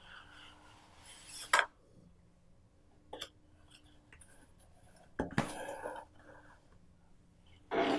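Cardboard smartwatch box handled by hand as the sleeve is slid off and the inner tray set down: a few short scrapes and taps, the sharpest about a second and a half in, with a cluster of rustling scrapes around five to six seconds.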